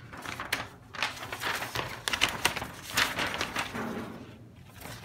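A large folded paper instruction sheet rustling and crackling in irregular bursts as it is unfolded by hand.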